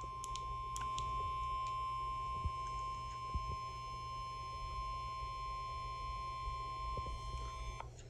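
NOAA Weather Radio warning alarm tone, a steady 1050 Hz tone through a handheld weather radio's speaker. It gets a little louder about a second in as the volume is stepped up, and cuts off near the end. It marks the start of a new warning broadcast, here a severe thunderstorm warning.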